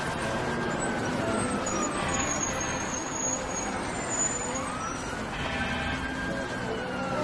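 City traffic noise with a distant siren wailing, its pitch slowly rising and falling, twice.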